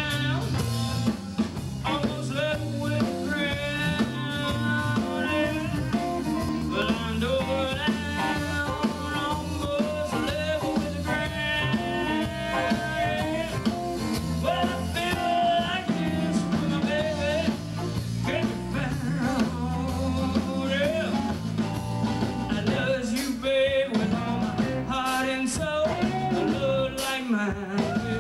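Live band playing on stage: electric guitars, bass guitar and drums, with a sung lead vocal line over them.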